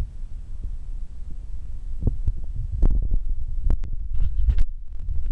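Wind buffeting the camera's microphone, a loud uneven low rumble, with scattered clicks and knocks from the handheld camera being moved.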